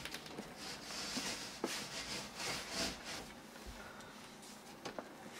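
Sliding display-case door rubbing along its track as it is pushed open, with a few light knocks and rustling as items inside are handled.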